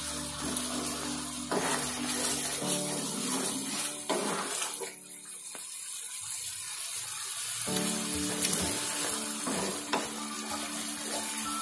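Background music with held chords over the steady hiss of thick tomato chutney simmering in a frying pan. The music's low notes drop out for a few seconds midway.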